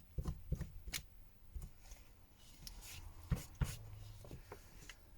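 Faint scraping and scattered small clicks of hand work on a smartphone's motherboard while old thermal paste is cleaned off it.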